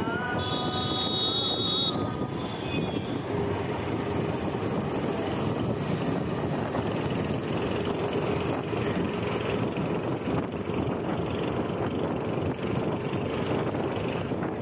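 Busy street traffic heard from a moving bicycle: a steady mix of motor noise from the CNG auto-rickshaws close ahead, with road and wind noise. A horn sounds for about the first two seconds.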